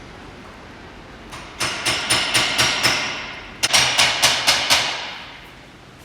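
Metal being struck rapidly, hammer-like, in two runs of about six blows with a short pause between. Each blow rings briefly.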